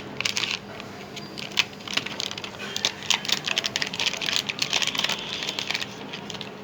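Packaging being opened by hand: a quick, uneven run of small clicks and crinkles.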